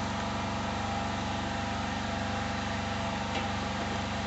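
Steady mechanical hum of a running motor, even throughout, with a faint hiss above it.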